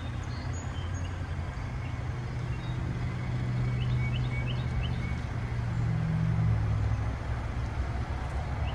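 Passenger car's engine running at low speed as the car creeps forward, its low hum swelling in the middle and easing near the end. Birds chirp in short rapid runs over it.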